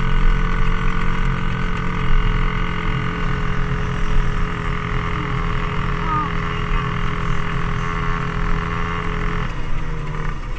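Dirt bike engine running at a steady cruising speed; about nine and a half seconds in, the engine note drops.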